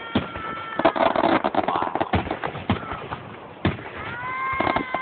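Fireworks finale: a rapid run of aerial shell bangs and crackles, the loudest about one, two and three and a half seconds in. A high, held whistling tone sounds over them from about four seconds in.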